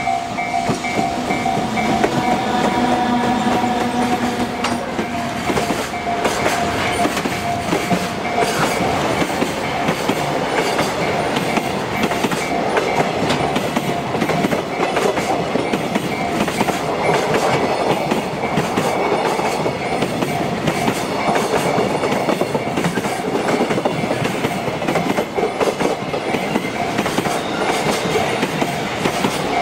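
Train passing over a railway level crossing, its wheels clacking over the rail joints, while the crossing's warning bell rings on in a steady, repeating tone.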